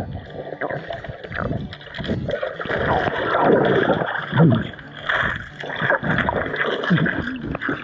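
Muffled water sloshing and gurgling against an action camera's housing held underwater, with rumbling and bubbling as it moves through the water. It is loudest around the middle.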